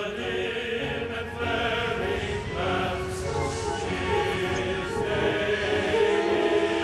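Choral music: a choir singing held chords with musical accompaniment.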